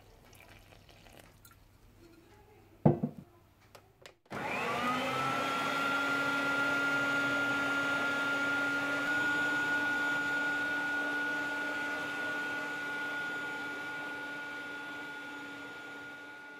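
An electric kitchen mixer's motor kneading bread dough: it starts about four seconds in, spins up quickly, and runs steadily with a hum and a whine, getting slowly quieter until it stops at the end. A sharp knock just before it starts.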